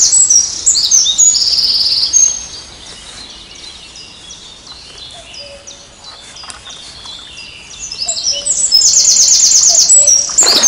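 A songbird singing loud, fast trilled song phrases, one at the start and another from about eight seconds in, with fainter bird chirps in between.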